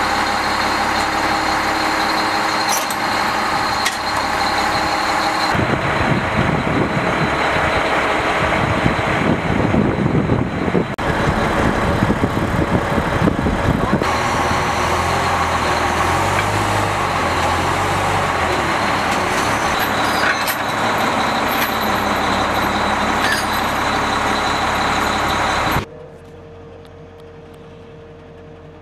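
Heavy military vehicle engines and machinery running loudly. The sound changes abruptly several times, and near the end drops to a quieter, steady engine hum.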